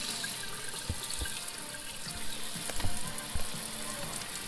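Kitchen faucet running steadily into a sink while a Dungeness crab is cleaned under it, with a few low knocks as the crab's top shell is pried off.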